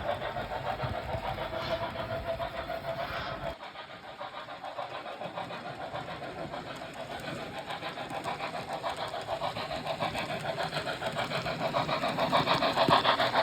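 Märklin HO-scale model of a class 05 steam locomotive and its coaches running on the track, a fast, even rattle of small wheels and motor. The sound drops suddenly about three and a half seconds in, then builds steadily louder toward the end as the train comes closer.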